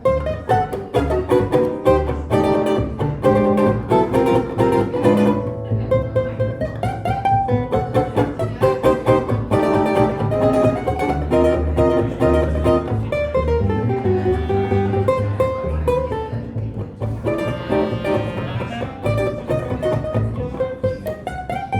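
Small live band playing an instrumental tune: strummed and plucked guitar over a pulsing bass line, with a sustained melody line on top.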